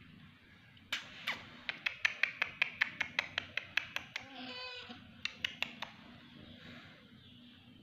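Rapid sharp clicks, about three to four a second, broken about four seconds in by a short mew from a tabby kitten, then a few more clicks.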